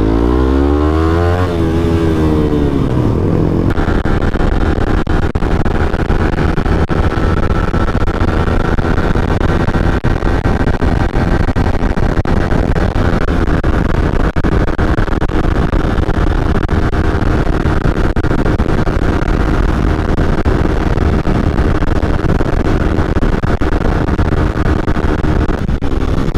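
Suzuki GSX-R125's single-cylinder four-stroke engine revving hard as it accelerates, its pitch rising and dropping back with each upshift in the first few seconds. Then it holds high revs at speed under a steady rush of wind on the microphone.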